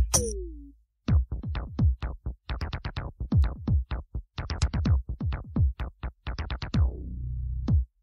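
Electronic drum-machine break in a jhankar-style beat remix: a rapid run of synth drum hits, each dropping in pitch, with a short falling synth glide at the start and the hits crowding together near the end.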